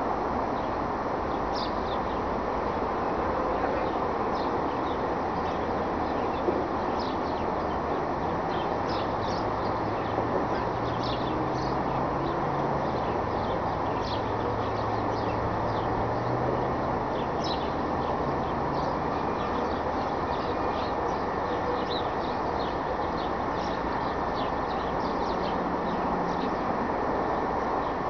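Steady outdoor winter ambience with small birds chirping over it and a low vehicle drone through the middle. A brief sharp bang comes about six seconds in and a smaller knock a few seconds later: the strange banging noise being recorded.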